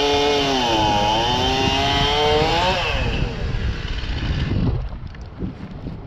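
A small engine running, its pitch dipping and then rising again before it fades out about three seconds in, with a rough rumbling noise underneath that drops away near the end.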